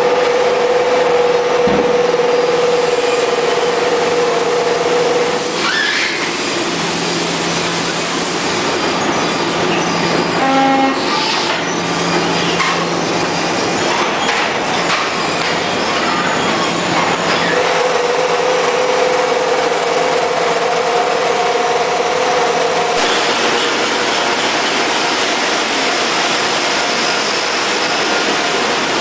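CRT production-line machinery running: a steady mechanical din of conveyors and handling equipment with a held whine that stops about five seconds in and comes back later, plus occasional metallic squeals and clatter.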